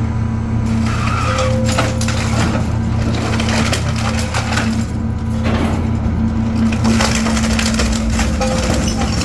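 Hydraulic shear baler working on mixed scrap metal: a steady low hum from the hydraulic power unit under irregular crunching, grinding and creaking as the scrap is compressed and sheared.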